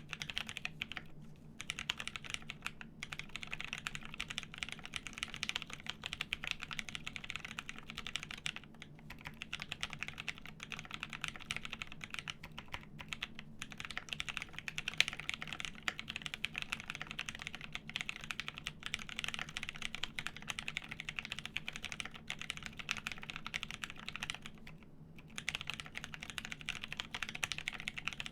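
Typing on a plateless JER1800 mechanical keyboard with lubed Pewter switches and G81-1800 keycaps: quick continuous runs of key presses, broken by a few short pauses.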